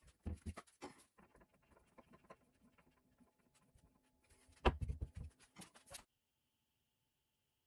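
A run of light, irregular taps and knocks, with a heavier low knock about four and a half seconds in. The knocking stops abruptly about six seconds in, leaving only a faint steady hiss.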